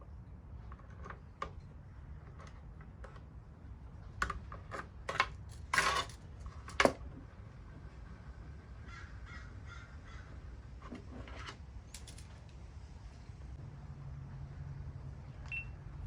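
Scattered knocks and clicks of hands and tools working on a plastic front lip spoiler, with a louder cluster of sharp knocks and a short harsh scrape between about four and seven seconds in.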